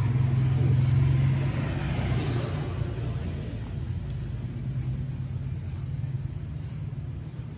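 A motor engine runs with a steady low hum, loudest in the first second and a half and then fading away.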